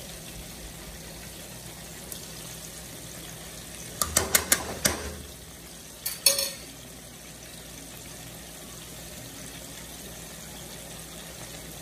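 Onions and chopped tomatoes sizzling steadily in hot oil in a frying pan. A quick run of sharp clicks comes about four seconds in, and a couple more shortly after.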